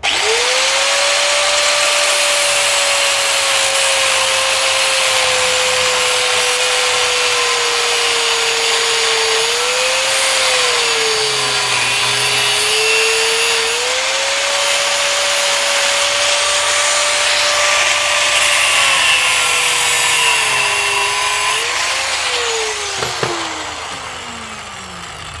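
Angle grinder cutting into a flat metal motorcycle gear lever, with a steady motor whine over a harsh grinding hiss. The motor's pitch sags twice as the disc is pressed into the metal. Near the end the grinder is switched off and winds down with a falling whine.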